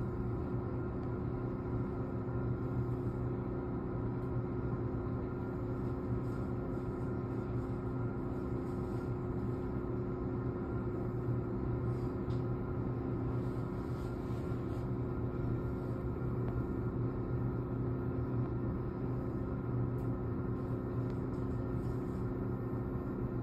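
Steady hum inside a stopped electric commuter train car, with several held tones and no change in pitch or level.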